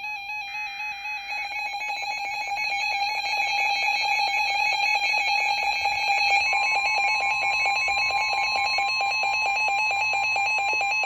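Emergency alert attention tones: a loud, steady electronic alarm tone that warbles and pulses rapidly, with a second, higher steady tone joining about six and a half seconds in. It cuts off suddenly at the end, the alert signal ahead of a severe thunderstorm warning.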